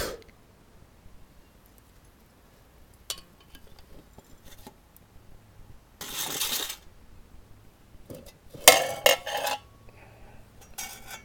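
A Foster's beer-can pot being lifted off a small can-type alcohol stove and handled: a few light clicks, a short scraping rush about six seconds in, then a quick run of loud metallic clinks and knocks about nine seconds in.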